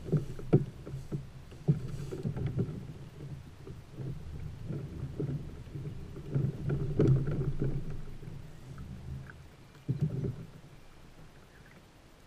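Irregular knocks, bumps and low rumbles from a fishing kayak and the angler's gear as he shifts in the seat and reels while fighting a fish. The sharpest knocks come about half a second in, near two seconds, around seven seconds and near ten seconds, and it goes quieter near the end.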